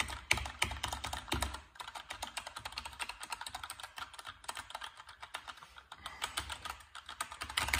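Fast, continuous typing on a Keychron K2 mechanical keyboard with Gateron Red switches and ABS keycaps: dense, irregular key clicks with a few brief pauses.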